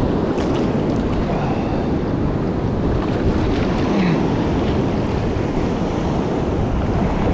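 Steady rush of fast, rough river water pouring below a low dam, heard up close, with some wind on the microphone.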